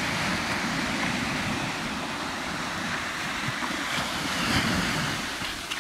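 Surf breaking and washing up a sandy beach, with strong wind buffeting the microphone; the wash swells briefly about four and a half seconds in.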